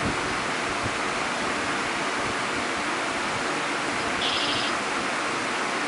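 Steady, even rushing background noise, with a short burst of rapid high chirps from a small bird a little over four seconds in.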